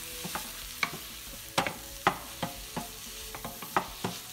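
Sliced button mushrooms and butter sizzling in a hot stainless steel saucepan while a wooden spatula stirs them, knocking against the pan about ten times at an uneven pace.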